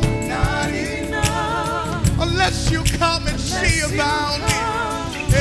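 Live gospel worship music: a small vocal group singing long, wavering notes over instrumental accompaniment with drum hits.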